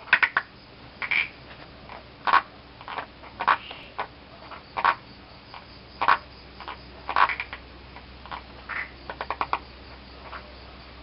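Frogs calling: short, irregular croaks at a few different pitches, with a quick run of several short calls near the end.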